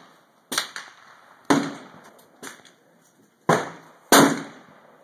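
A rapid, uneven run of gunshots, about six sharp cracks in four seconds, some much louder than others, each with a short echoing tail.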